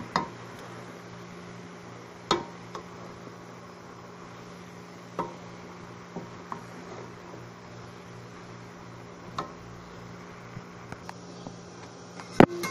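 Steady low hum and hiss, with a few sharp knocks of a spoon against a metal pot as chopped onions are stirred while they dry-cook without oil; the loudest knock comes near the end.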